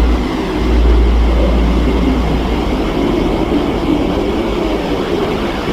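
A deep, steady rumble with wavering humming tones drifting above it, presented as the sound of the Earth turning.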